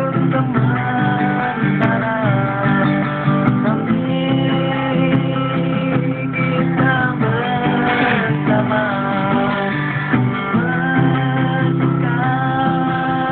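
A cutaway acoustic guitar strummed in steady chords, with a man singing along to it.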